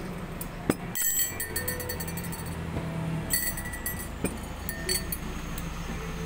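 A metal spoon and glassware clinking: a few sharp, ringing clinks, the loudest under a second in and a small cluster past the four-second mark, as a spoon works between a drinking glass and a tin can of milk. A steady low hum runs underneath.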